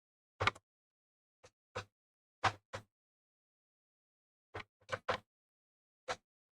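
Scattered short, sharp clicks and knocks of a laptop's plastic case and tools being handled during disassembly, about nine at irregular intervals, with dead silence between them.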